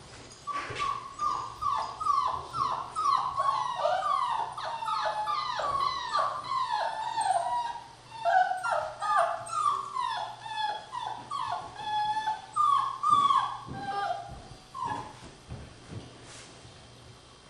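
Six-week-old Border Collie puppies whining and yipping: a long run of short high cries, each falling in pitch, about two a second, dying away a couple of seconds before the end.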